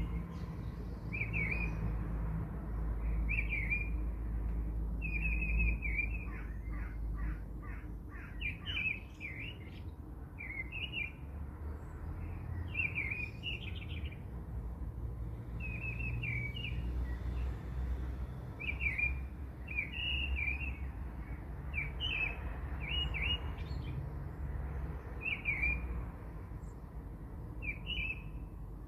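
Small birds chirping: short, high phrases repeating every second or two, over a steady low background noise.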